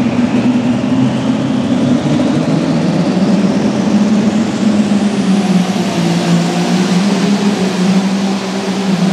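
Turbocharged diesel engine of a Light Limited Super Stock pulling tractor running loud and steady at high revs, with a high turbo whine rising steadily in pitch over several seconds.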